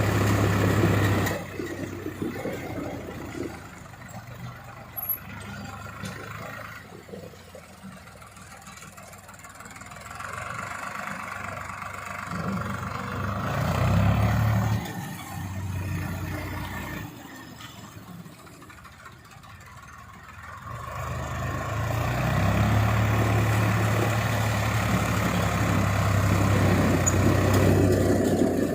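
A road-works vehicle's engine running. It is loud for the first second or so, then quieter and varying, swells again around the middle, and runs steadily loud over the last several seconds.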